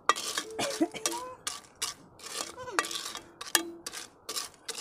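Metal cookware being handled: a run of irregular clinks and knocks from a pressure cooker and spoon, with a few short ringing tones.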